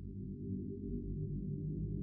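Low ambient music: a deep, steady drone slowly swelling in loudness.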